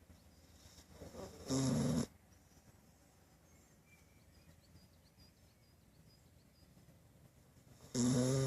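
Golden retriever snoring in its sleep: a loud, low snore about a second and a half in, then quiet, then a second snore starting near the end.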